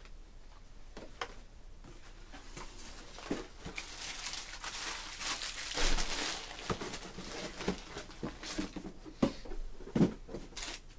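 Handling noises at a desk: scattered sharp clicks and taps, with a spell of rustling in the middle.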